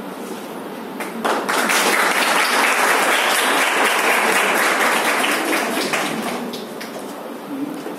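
A room full of students applauding by clapping their hands. The clapping starts suddenly about a second in, holds steady for about five seconds, then dies away.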